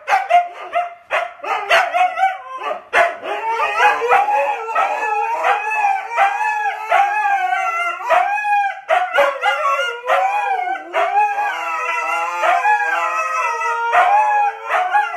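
Two huskies howling together in loud, wavering, overlapping calls that rise and fall in pitch.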